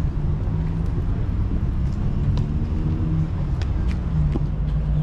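Steady low outdoor rumble, with a few faint ticks.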